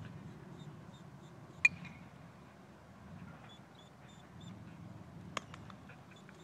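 Open-air ambience with a low rumble of wind on the microphone and faint, repeated high chirps, broken by a sharp click about a second and a half in and a smaller click near the end.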